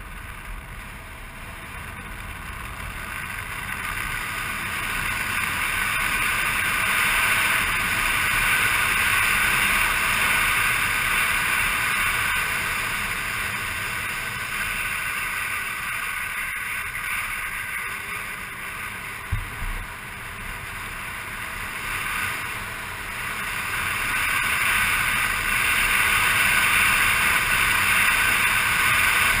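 Motor scooter being ridden, its engine and the rush of wind and road noise swelling and easing as its speed changes. A brief thump about two-thirds of the way through.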